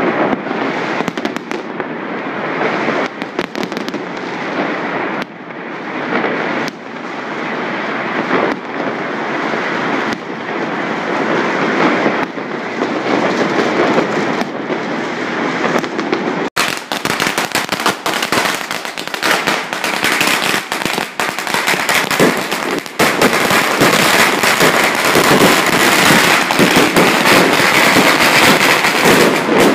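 Firecrackers and fireworks going off without pause: a dense, rapid crackle of many firecracker strings with heavier bangs mixed in. It breaks off for an instant about halfway through, then grows louder and denser over the last several seconds.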